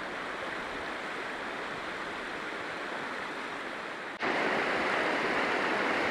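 Shallow mountain river flowing over rocks, a steady rush of water that gets louder about four seconds in.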